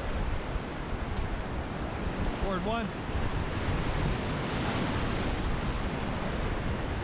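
River water rushing around a whitewater raft, with wind buffeting the microphone. A brief voice-like call rises and falls about two and a half seconds in.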